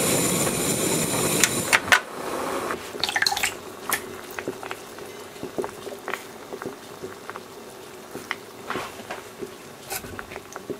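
Miso stew boiling hard in a small clay pot, a dense bubbling for the first two seconds or so, then quieter with scattered small pops.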